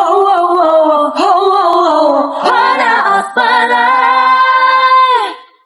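Female voices singing the close of a dangdut song, ending on a long held final note that fades out shortly before the end.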